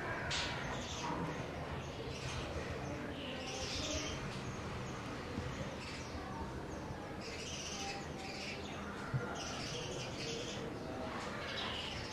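Birds chirping again and again over a steady low hum, with a single brief click near the end.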